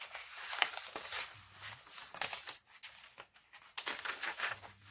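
Paper pages of a handmade junk journal being turned and flipped by hand, a run of short soft rustles that bunches together near the end.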